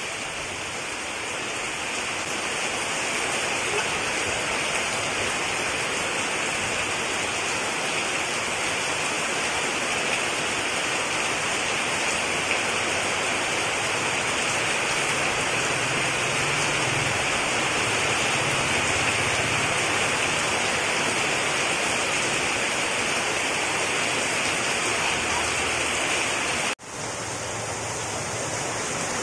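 Torrential rain pouring down steadily, a dense, even hiss of falling water that breaks off for an instant near the end.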